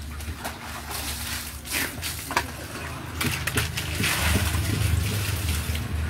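Water poured from a small container splashing through a perforated plastic crate onto wet concrete, heaviest in the last couple of seconds, with a few light knocks of plastic.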